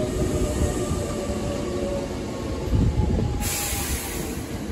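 Hankyu 8200 series electric commuter train running past at close range: a heavy rumble of wheels on rail, with faint tones from its Toshiba GTO VVVF inverter drive. A short hiss of air comes about three and a half seconds in.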